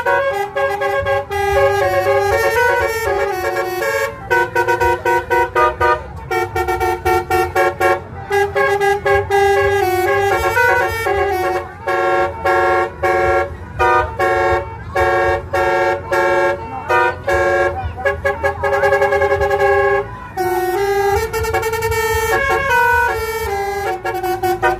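Basuri musical horn playing a tune in quick runs of short, repeated notes, over a low steady rumble.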